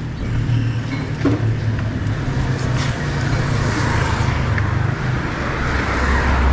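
Steady road noise heard from a moving bicycle on asphalt: a low rumble of wind and tyres mixed with motor traffic, the low rumble growing stronger near the end.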